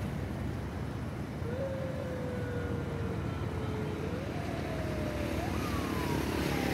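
Steady low engine rumble, plausibly from the motor of the barge carrying an excavator and concrete mixer as it passes beneath the bridge. From about a second and a half in, a faint thin whine glides slowly down in pitch, jumping up twice, and the sound grows slightly louder near the end.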